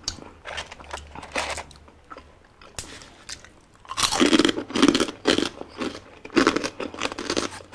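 Close-miked chewing of balut topped with raw red chillies, with soft wet clicks at first. From about four seconds in come louder repeated huffs and blows of breath, a reaction to the chillies' heat.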